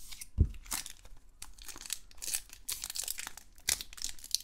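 Crinkling and tearing of a trading-card pack's foil wrapper being torn open by hand, in a run of irregular short crackles. A soft thump near the start.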